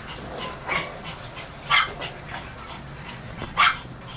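A Pomeranian giving three short, high-pitched yapping barks, the second and third the loudest.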